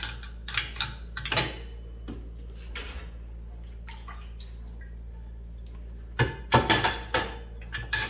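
Metal pots and pans clinking and knocking against the dishwasher's wire rack as they are loaded. There are a few knocks in the first second and a half, then a louder run of clatter about six seconds in.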